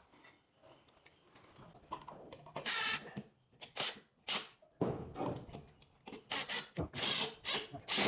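Tools and parts being handled during installation work: a series of short scrapes and rubs, several of them louder and rasping, with small knocks in between.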